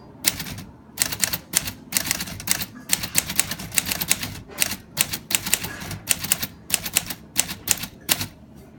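1936 L.C. Smith & Corona Silent manual typewriter being typed on: quick runs of sharp key strikes, several a second, broken by short pauses.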